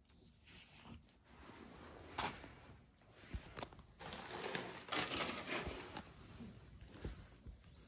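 Soft, irregular rustling and scuffing of fur on a plush blanket as cats shift about and groom, with a few light knocks.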